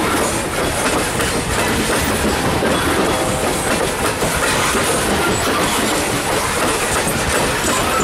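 Coal hopper cars of a freight train rolling past at close range, their steel wheels and trucks making a steady rumble and clatter on the rails.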